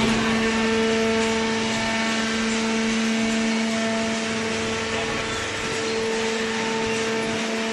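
Hydraulic cardboard baler running: its electric motor and hydraulic pump make a steady mechanical drone with a constant humming tone.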